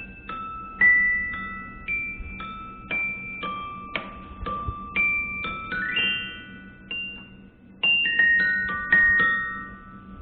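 Mallet percussion instrument played in a slow, free-time line of single high struck notes, each ringing on after the strike. Notes come about one or two a second, bunching into quick runs around the middle and near the end, over a faint steady low hum.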